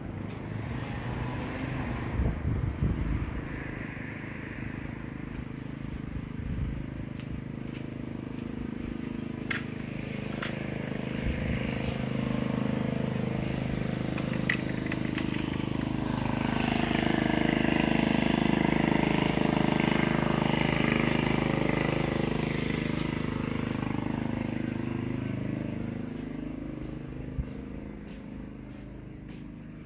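An engine running steadily at an even pitch, growing louder around the middle and fading near the end, with a few sharp clicks.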